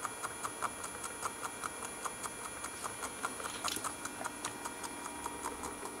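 Miniature working washing machine running: its small drum motor gives a thin high whine with a steady clicking about five times a second as the drum turns.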